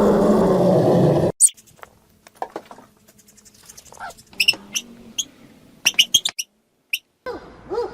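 Animal sounds from three clips. A loud, rough, sustained call cuts off abruptly about a second in. Then come scattered short, high squeaks and clicks, and near the end a new run of short calls that rise and fall in pitch.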